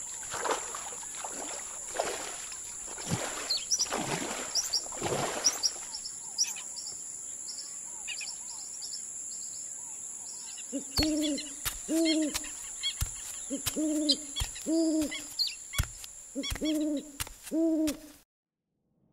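Owl hooting: a run of short, low hoots, often in pairs, through the second half, stopping abruptly near the end. Soft rustling, as of movement through grass and brush, with faint high chirps, comes before the hoots.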